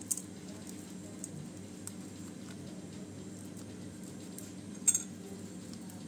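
Soft rustling and crinkling of leaves as hands fold and tie a leaf-wrapped parcel with a grass stalk, over a low steady hum. Two sharp clicks stand out, one just after the start and a louder one about five seconds in.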